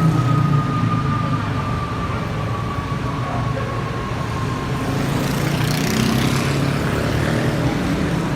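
Road traffic: vehicle engines running, with a faint steady tone that slowly falls in pitch and fades out about five seconds in, followed by a growing rush of passing-vehicle noise.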